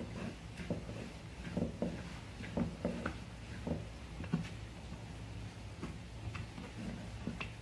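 Wooden rolling pin being rolled back and forth over pie dough on a floured wooden counter: soft, irregular knocks and thuds.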